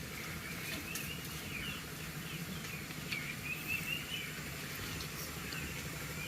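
Birds chirping again and again in short wavering calls over a steady outdoor background hiss, with a few faint clicks.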